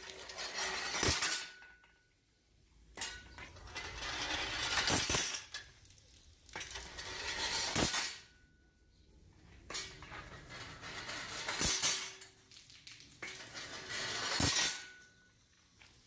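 Homemade steam-driven water pump running slowly: a burst of steam hissing with sharp metallic clanks from the beam and valve linkage, repeating about every three to three and a half seconds.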